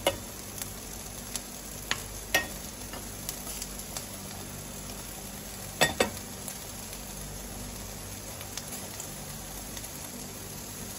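Seafood marinara sauce sizzling steadily in a nonstick frying pan. A metal slotted spatula clicks against the pan a few times in the first six seconds, the loudest click about six seconds in.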